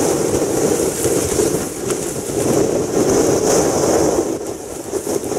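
Strong gale-force wind buffeting the microphone: a loud, rough rushing that swells and eases, dropping back a little near the end.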